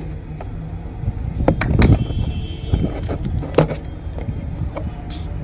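Handling of a small cardboard box: fingers tap and pry at the tucked lid flaps, giving a few sharp clicks and scrapes, over a steady low hum.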